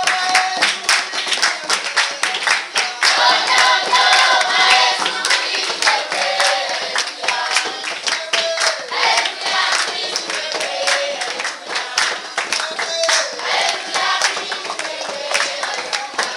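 A group of children singing together, with many hands clapping in a steady rhythm along with the song.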